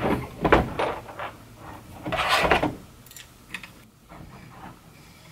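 Handling noises from assembling Creality Ender 3 3D printer parts by hand: several light clicks and knocks, a louder rubbing scrape about two seconds in, then a few faint ticks.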